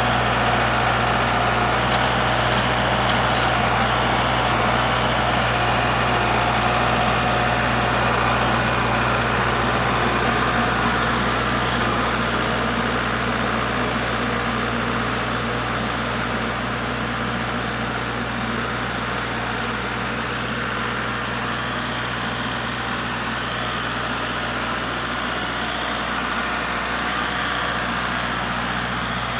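Kubota MX5400 tractor's diesel engine running steadily at a constant speed, easing slightly quieter about halfway through.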